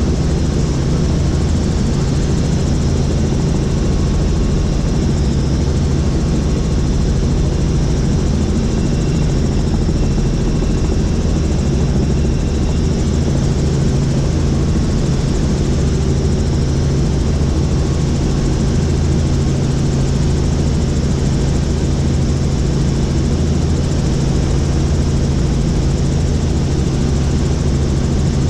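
Helicopter in flight, heard from inside the cabin: a loud, steady drone of engine and rotor with a low hum.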